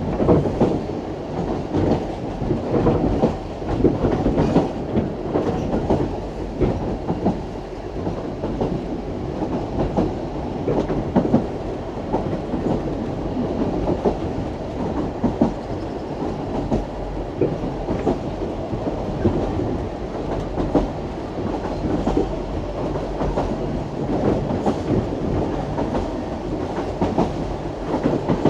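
Isle of Man Steam Railway train under way: a steady rumble of the running carriages, with wheels clicking over the rail joints.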